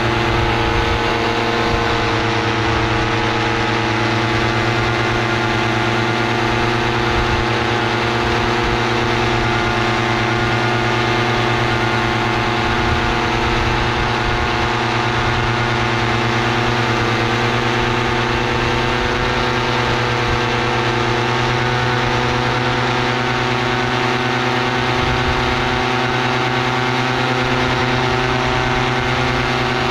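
Paramotor engine and propeller running steadily at a constant cruise setting in flight, an even drone that holds the same pitch throughout, with wind rumbling on the microphone underneath.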